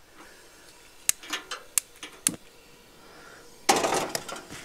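Things being handled on a camp cooking table: a few sharp clicks and knocks, then near the end a loud crackling clatter lasting almost a second.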